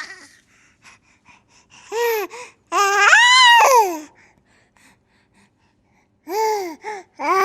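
A baby laughing in high-pitched squeals: a short one about two seconds in, a long one rising and falling in pitch just after, then a pause with small breaths, then two short squeals and another long one starting near the end.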